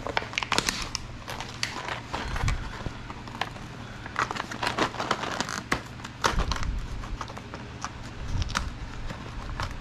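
Small screws and sheet-metal smoker hopper parts being handled, giving irregular light clicks, taps and rattles.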